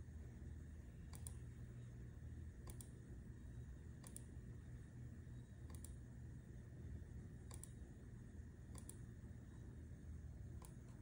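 Single computer mouse clicks, seven of them about one every second and a half, over a faint low hum.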